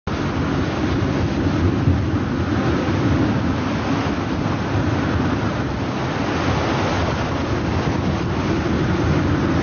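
Rough sea churning and breaking around a small boat, with wind buffeting the microphone: a steady, heavy rushing noise with no distinct events.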